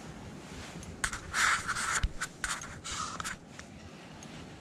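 Spinning reel cranked by hand to wind in line: a scratchy whirring in several short spells, starting about a second in and lasting a little over two seconds.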